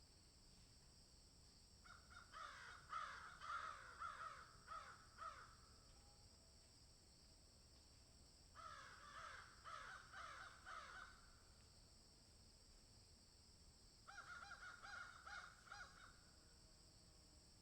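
Crows cawing in three bouts of rapid, harsh calls, each bout two to three seconds long, with pauses of a few seconds between.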